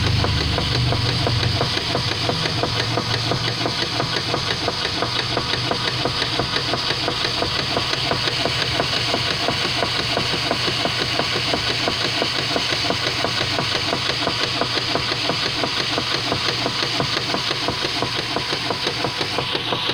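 Whirlpool direct-drive top-load washer running with a loud, rhythmic, pulsing mechanical noise from its drive underneath. The owner suspects the agitating gear in the transmission; the drive block has already been replaced.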